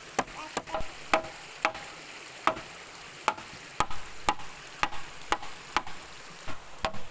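A series of irregular sharp knocks or taps, about two a second, some with a brief ring.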